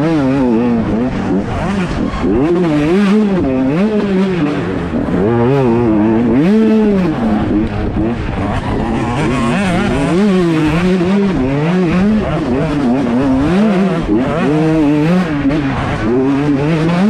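125cc two-stroke motocross bike engine revving hard and backing off again and again, its pitch climbing and dropping every second or two under race throttle.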